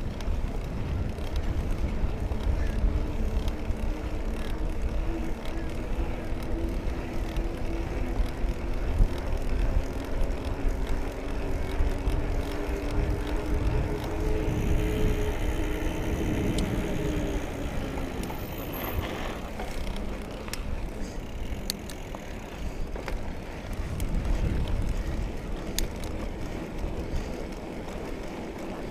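2017 Trek Remedy 7 mountain bike being ridden along a dirt trail: steady tyre and trail rumble with wind on the microphone. A droning hum runs through the middle and falls in pitch before fading.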